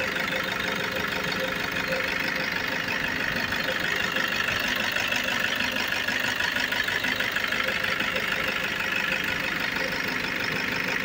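2011 Toyota Hilux D-4D diesel engine idling steadily, heard close up in the open engine bay.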